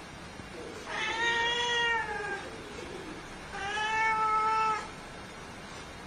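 A domestic cat meowing twice: two long, drawn-out meows about a second apart, the first trailing down in pitch at its end.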